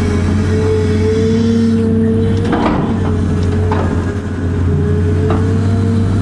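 Cat 330 excavator running under load, heard from inside the cab: a steady low engine hum with a constant whine above it. A few sharp clunks sound as the bucket works the backfill dirt.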